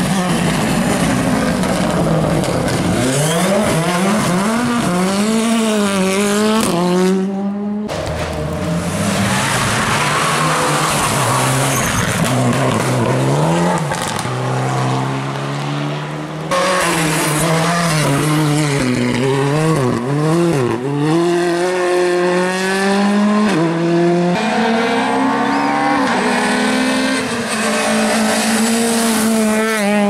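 Rally cars driven flat out on a stage, one after another: engines revving hard and climbing through the gears, the pitch dropping at each shift and when the driver lifts for a corner. The sound changes abruptly about 8, 16 and 24 seconds in, where the clips are joined.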